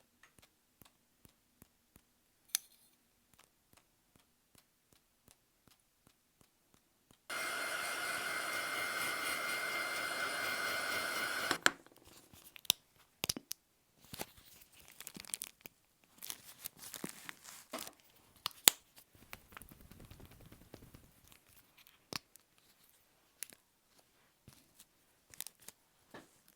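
Paper crafting sounds from working on an art journal page: light taps and clicks, then a steady hiss that starts and stops abruptly and lasts about four seconds, then irregular paper rustling, scraping and tapping with one sharp knock.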